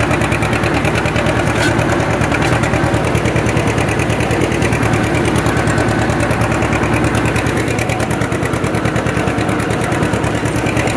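John Deere 70's two-cylinder engine running steadily under load with a rapid, even exhaust beat as the tractor pulls a disk harrow through plowed ground.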